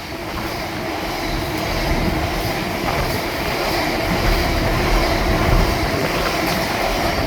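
Cement freight train hauled by a Class 66 diesel running through a station. Its wheels roll on the rails in a steady rush that grows louder over the first couple of seconds and then holds, with a few faint clicks.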